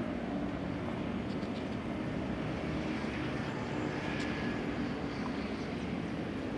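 Steady, unbroken drone of a distant motor engine, with a constant low hum.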